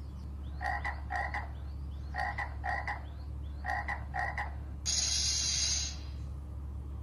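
Frog croaking: six short croaks in three pairs. About five seconds in, a snake hisses once for about a second, louder than the croaks.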